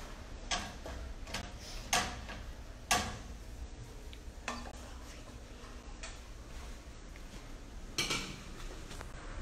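Cookware clatter: a spoon scraping and tapping against a frying pan, with several sharp knocks, one of the loudest near the end.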